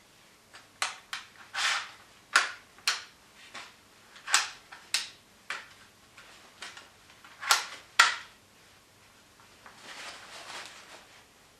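Mechanical handling of a WE SMG 8 (MP7 replica) gas blowback airsoft gun: a string of sharp clicks and short sliding clacks as its retractable stock is pulled out and pushed back and latched, the two loudest clicks coming close together past the middle. A soft rustling follows near the end.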